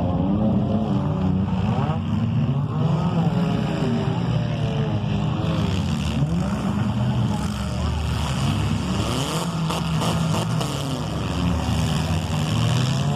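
Several compact-car engines revving at once, their pitches rising and falling as the cars accelerate and back off. Near the middle come a few sharp knocks, typical of cars hitting one another.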